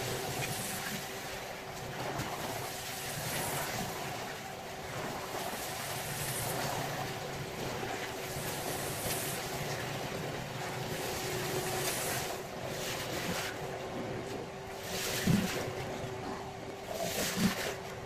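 Rug being washed with motorised cleaning equipment: a steady motor hum under rushing, spraying water that surges now and then, with two sharp knocks about two seconds apart near the end.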